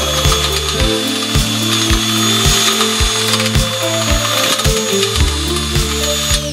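A 5/8-inch drill bit boring through the steel wall of an exhaust header tube, a grinding cut with a steady high squeal that cuts off at the very end as the bit breaks through or stops. Background music with a steady beat plays underneath.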